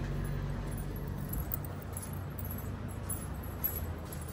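Handling noise from a phone camera being carried: faint rustling and small clinks over a low steady hum that fades about a second and a half in.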